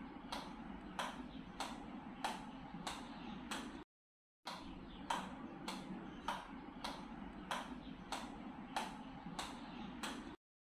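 Table-tennis ball bounced repeatedly on a rubber-faced paddle: a light tap about every 0.6 s in a steady rhythm, over a low background hum. The sound drops out entirely for about half a second a little before halfway and again near the end.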